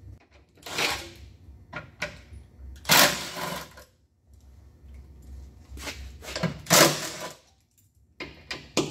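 Cordless impact wrench run in several short bursts, backing out the bolts that hold the battery pack's ground straps.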